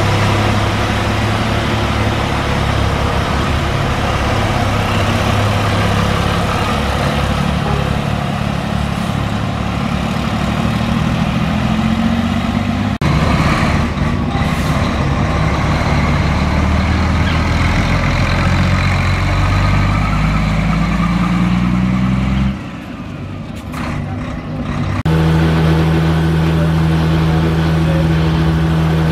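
Race-truck diesel engines running at idle: a deep, steady drone that changes abruptly at a few cuts. About three-quarters through it drops quieter for a few seconds, then a steadier, higher-pitched engine hum takes over.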